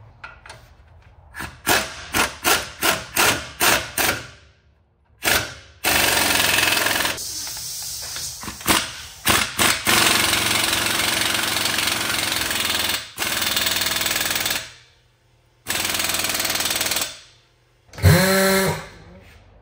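Pneumatic impact wrench on a truck's front wheel hub. It starts with a quick series of short trigger bursts, about three a second, then runs in long steady hammering spells with a thin high air whine. Near the end there is a short loud whir.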